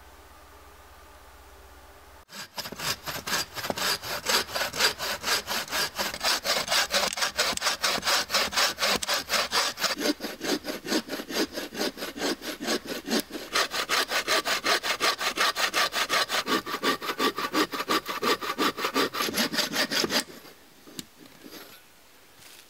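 Wooden frame saw (bucksaw) cutting through a dry fallen log in fast, even back-and-forth strokes. It starts about two seconds in and stops a couple of seconds before the end, and a steady ringing note joins the rasp partway through.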